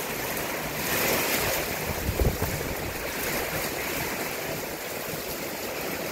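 Heavy rain and hail pouring down, a steady dense hiss of falling water and hailstones, with a couple of sharper knocks about two seconds in.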